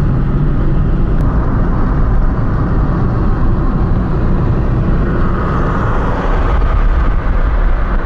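Steady road noise of a car driving at highway speed, heard from inside the cabin: tyre rumble, engine hum and wind.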